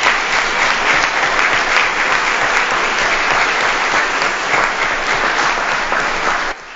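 A room full of people applauding, a dense steady clapping that cuts off abruptly near the end.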